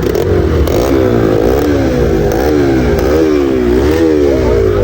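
Motorcycle engine being ridden with the throttle worked on and off. Its pitch repeatedly rises quickly and sinks back, about once every 0.7 seconds.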